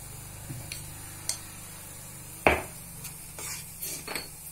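Steel ladle stirring thick dal gravy in a stainless steel kadai, scraping and clicking against the pan, with one sharp knock on the pan about halfway through. A steady low hum runs underneath.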